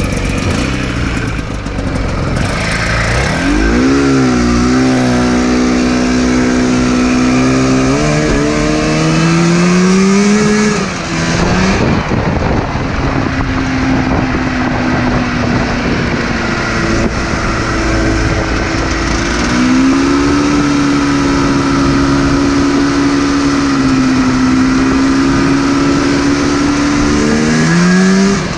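Yamaha Phazer 480cc two-stroke snowmobile engine powering a go-kart at speed. Its pitch climbs under throttle and holds high, drops about ten seconds in, then rises and holds again before falling near the end. Wind rushes over the microphone throughout.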